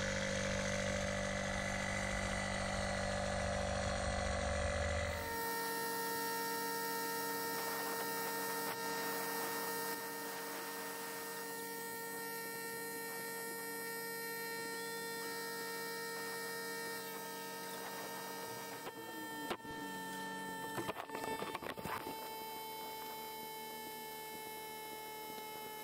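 Music for about the first five seconds, then a steady hum with several held tones from an electric air pump inflating an inflatable boat, with a few brief knocks and rustles partway through.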